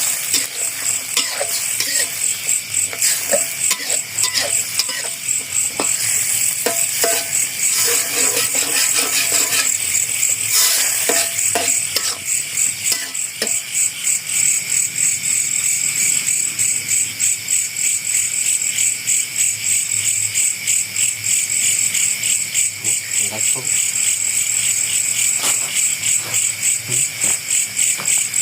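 Night insects, crickets, chirping in a loud, rapidly pulsing chorus, with scattered clicks and knocks over it in the first half.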